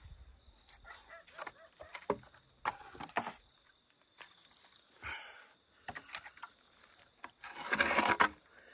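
Dry, weathered firewood branches knocking, cracking and scraping as they are picked up by hand and gathered into an armful, with a longer, louder scrape near the end. Crickets chirp faintly behind.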